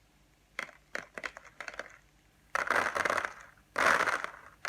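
Uncooked rice grains poured from a hand onto a folded sheet of A4 paper, a foley trick for the sound of rain. A few scattered ticks of single grains come first, then a dense patter from about two and a half seconds in, with a brief break a little over a second later.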